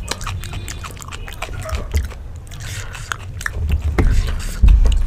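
Close-up eating sounds: a person biting and chewing food, with many short wet mouth clicks. A loud low thump comes near the end.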